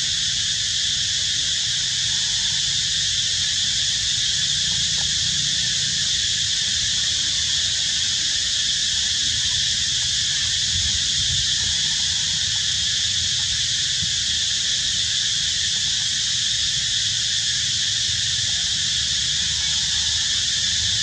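A steady, unbroken high-pitched insect chorus, with a low rumble underneath.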